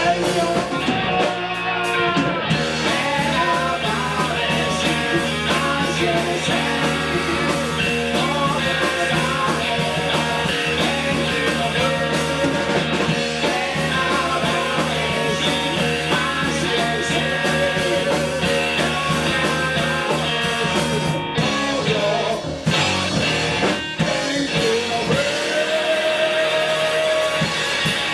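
A live rock band playing loudly, with electric guitar, electric bass and a drum kit. A long note is held near the end.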